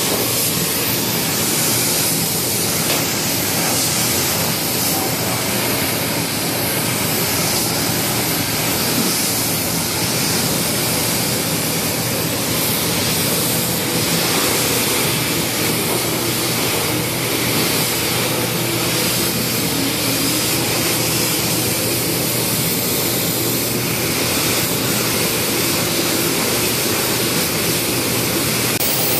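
Gravity-feed spray gun hissing steadily with compressed air as it sprays silver paint.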